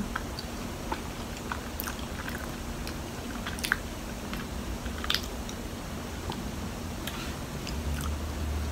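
A person chewing a soft pink mochi with a granular, slightly crunchy peanut filling, close to the microphone: soft mouth sounds with scattered small clicks. A low rumble rises near the end.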